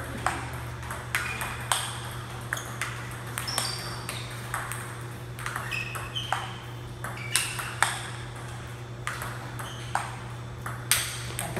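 Table tennis balls clicking sharply off paddles and the table in quick irregular strings during rallies, some hits leaving a short ringing tone. A steady low hum runs underneath.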